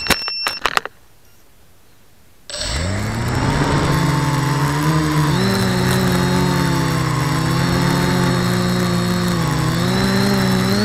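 Electric quadcopter motors and propellers, heard from the onboard camera. A few sharp knocks come as the quad goes down into dry leaves, and the motors cut out for about a second and a half. They then spin back up in a rising whine and drone steadily, the pitch shifting up and down with throttle.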